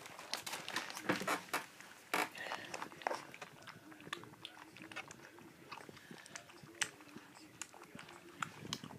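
Welsh Springer Spaniel puppies lapping formula milk from a plate for the first time: irregular wet clicks from their tongues, thickest in the first couple of seconds.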